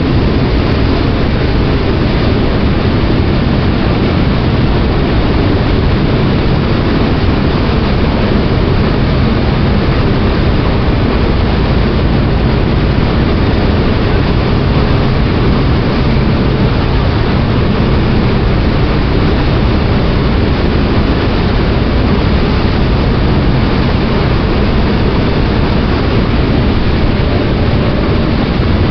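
A ferry under way: its engines run with a steady deep rumble under a constant rush of water.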